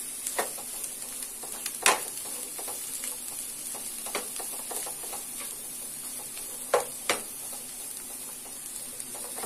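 Chopped onions sizzling in melted butter in a frying pan as a spatula stirs them, with a few sharp taps and scrapes of the spatula against the pan.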